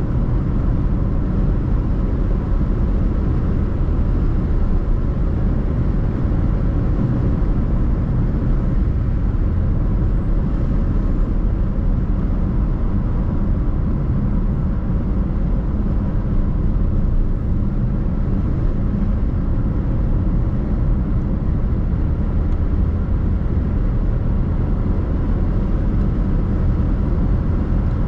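Car being driven: steady road and engine rumble, with no change in pace.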